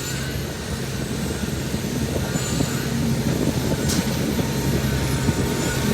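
Concrete pump and concrete mixer truck running steadily during a pour: a low, even engine drone.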